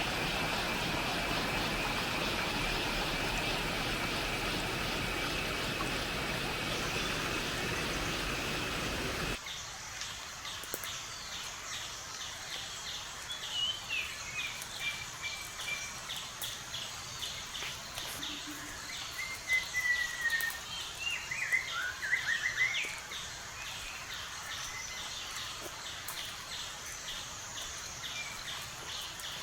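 Forest ambience: for the first nine seconds a dense steady hiss with a steady high note, then an abrupt change to quieter woodland, with insects trilling in rapid even pulses and birds giving short whistles and gliding calls, busiest around the middle.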